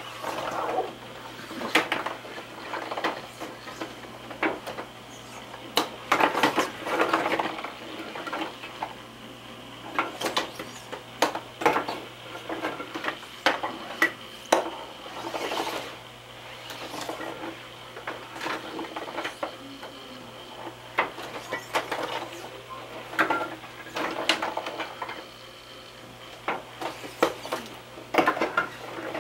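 Kaleidoscope being turned and handled, giving irregular clicks and rattles, with a faint steady hum underneath.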